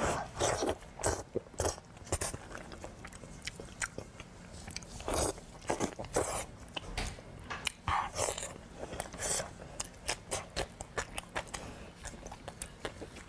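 Close-miked eating: a person biting into and chewing braised pork knuckle, with many short, irregular smacks and clicks of lips and teeth.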